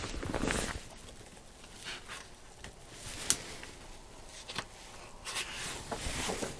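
Soft paper rustles and light clicks from gloved hands handling the pages of an old book of pressed plants, with one sharper click a little past the middle.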